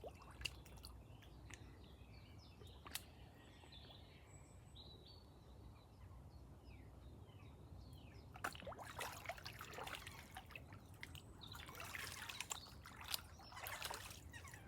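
Water splashing and trickling in two short spells, one about two thirds of the way in and one near the end, over faint bird calls.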